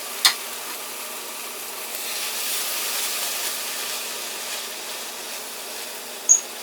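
Salmon fillets sizzling in a frying pan greased with cooking spray: a steady hiss that swells a little in the middle. A sharp click comes just after the start, and a brief high-pitched squeak near the end.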